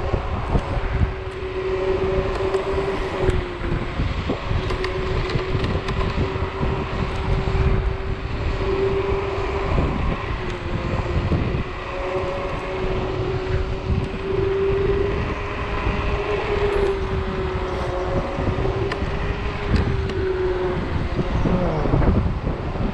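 Electric scooter hub motor whining at a near-steady pitch while riding, the pitch dipping briefly a few times, over low wind rumble on the microphone and road noise.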